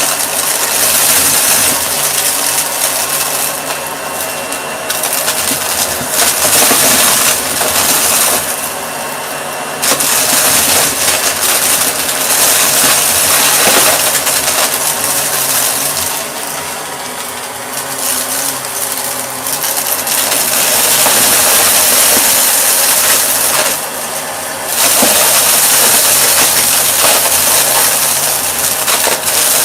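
Shark vacuum cleaner running with a steady motor hum under a loud airflow hiss that swells and drops every few seconds, with scattered small clicks.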